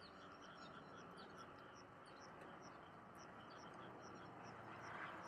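Faint chorus of frogs calling in rice paddies: a dense, steady haze of calls with many short high chirps scattered throughout.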